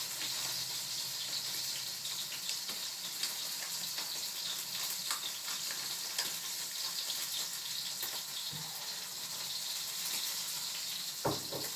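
Steak sizzling in a hot frying pan: a steady hiss with scattered small pops and crackles.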